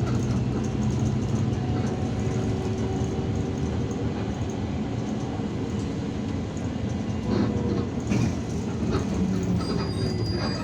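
Irisbus Citelis 12M city bus heard from inside the cabin while driving: a steady engine hum with road noise and rattles from the body. The engine note shifts about seven seconds in.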